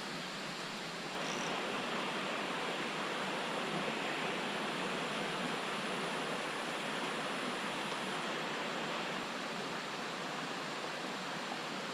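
Creek water rushing over rapids: a steady, even rush that gets a little louder about a second in.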